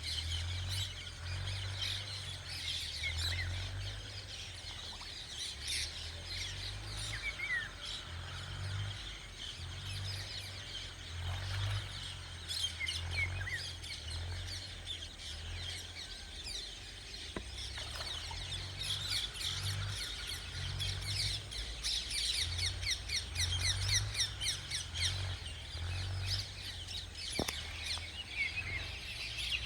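Many small birds chirping, dense quick calls throughout, over a low uneven rumble.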